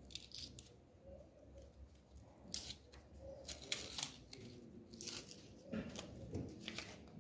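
Irregular short clicks, scrapes and tearing noises from cells being pulled out of a dismantled e-bike battery pack.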